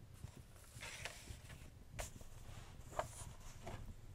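Fireplace crackling: a few sharp pops about a second apart, the loudest about three seconds in, over a low steady rumble.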